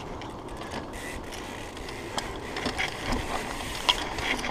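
Mountain bike rolling along a dirt singletrack: tyre noise on the trail with scattered clicks and rattles from the bike.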